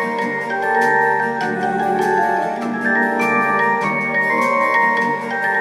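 Yamaha Genos arranger keyboard playing a lively tune: a melody in held notes over a bass line and a steady beat of drum hits from its accompaniment.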